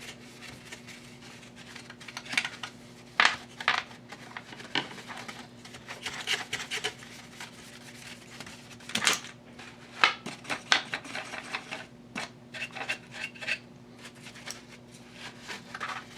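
Brush dusting an amplifier circuit board: scattered scratches and light clicks and clatters as the board is scrubbed and handled, over a steady low hum.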